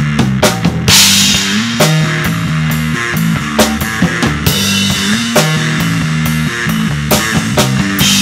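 Instrumental rock played live on electric bass guitar and drum kit: a heavy held bass line under a steady drum beat, with cymbal crashes about a second in and near the end.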